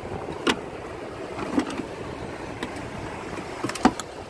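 Steady wash of sea water and wind around a small open fishing boat, with a few short knocks, the loudest near the end.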